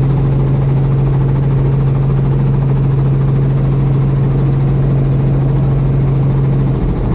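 Helicopter engine and rotor running on the ground, heard from inside the cabin: a loud, steady hum with a strong constant low drone. The drone changes slightly near the end.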